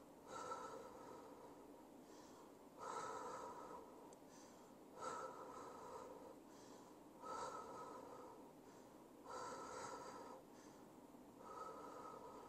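A man breathing slowly and deeply while holding a stretch, one faint breath sound about every two seconds.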